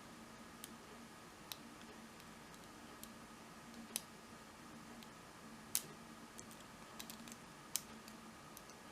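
Faint, irregular small metallic clicks of a lock pick and tension wrench working the pins of a Kasp 14040 padlock during single pin picking, with the loudest click a little past halfway.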